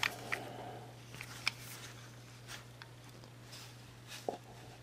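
Small plastic toy being handled and repositioned: a few scattered light clicks and taps over a faint steady hum.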